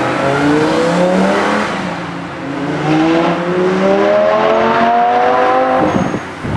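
A supercar engine accelerating hard. Its pitch climbs, drops briefly at an upshift about two seconds in, then climbs again before breaking off near the end.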